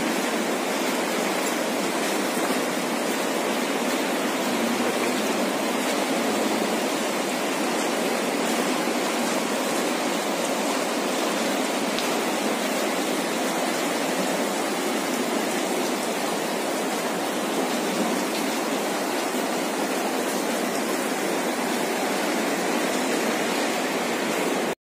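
Glacial meltwater stream rushing steadily through an ice cave.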